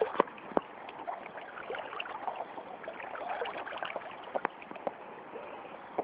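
River water sloshing and splashing around someone wading waist-deep, close to the microphone, with scattered sharp clicks and knocks.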